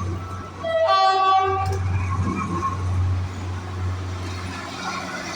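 Passing train sounding its horn once, about a second in, for about a second, over the steady low rumble of the train running.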